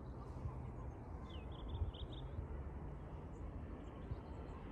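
Low steady outdoor rumble with a small bird's quick run of about half a dozen high chirps, about a second and a half in.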